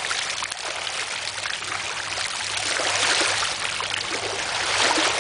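Small waves washing in over a pebble beach, water trickling and fizzing among the stones, swelling about three seconds in and again near the end.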